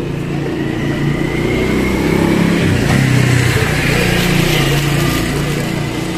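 A motor vehicle's engine passing on the street, growing louder to a peak about halfway through and then fading.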